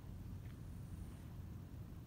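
Low, steady outdoor background rumble with a faint click about half a second in.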